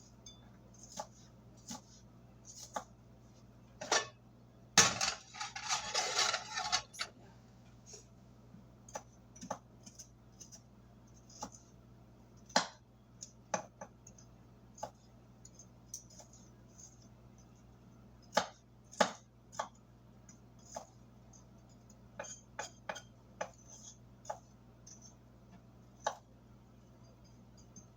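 Kitchen food prep: irregular knocks and clinks of a knife, dishes and utensils, with a louder, noisier stretch lasting about two seconds starting about five seconds in.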